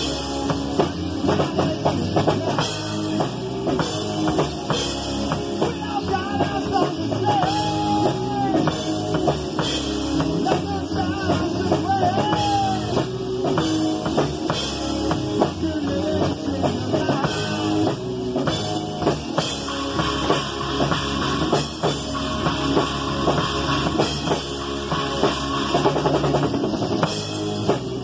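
Rock band playing, with a drum kit keeping a steady beat.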